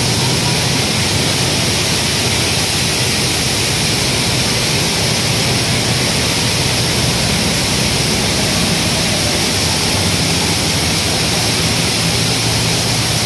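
Steady, loud machinery noise with a low hum underneath: a grain cleaning plant's motors and blowers running.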